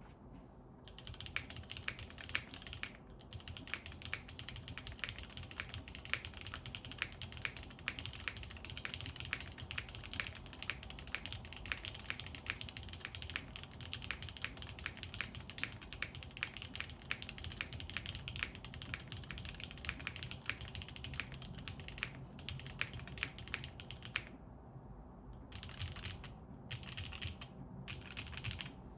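Typing on a Krush65 mechanical keyboard with a full aluminium plate and GMK keycaps: a fast, continuous run of key clacks, then a short pause about three-quarters of the way through, then a few shorter bursts of typing.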